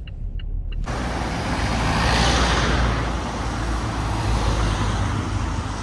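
Road traffic on a busy town street: a steady wash of vehicle noise with a deep rumble. It starts suddenly about a second in and is loudest a second or so later.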